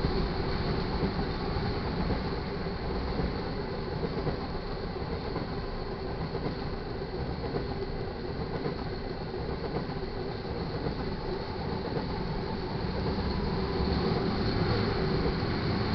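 Loaded crude oil tank cars of a freight train rolling past on steel wheels, a steady, unbroken rail rumble that grows slightly louder near the end.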